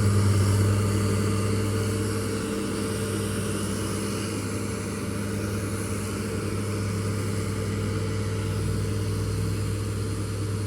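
Engine of heavy construction machinery running steadily with a low hum.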